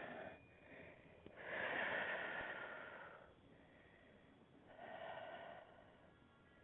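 A woman breathing audibly through the nose while holding a yoga stretch: a long breath lasting nearly two seconds, starting just over a second in, then a shorter one about five seconds in.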